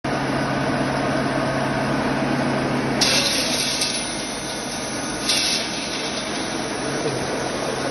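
Colloid mill for nut butter running with a steady motor hum, while shelled nuts are tipped from a scoop into its stainless-steel hopper, a short rattling hiss about three seconds in and again a couple of seconds later.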